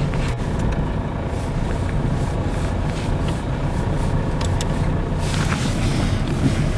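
Car driving along a dirt track, heard from inside the cabin: a steady low rumble of engine and tyres on the rough surface, with a brief rush of hiss about five seconds in.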